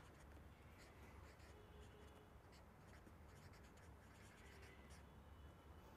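Faint scratching of a felt-tip marker writing on paper, in short irregular strokes, over a low steady hum.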